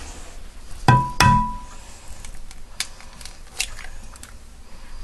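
An egg knocked twice against a hard edge, each knock leaving a short ring, then a few small clicks as the shell is broken open by hand.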